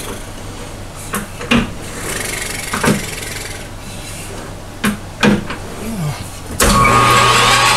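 Metal-lathe work: a series of knocks and clicks as the brass workpiece is handled in the three-jaw chuck. About six and a half seconds in, the lathe's motor starts and runs with a steady hum.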